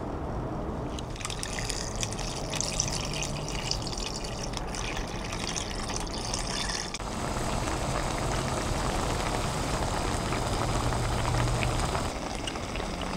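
Thick pork-bone soup broth poured from a plastic takeout container into a shallow electric pan, splashing and trickling over the meat and potatoes.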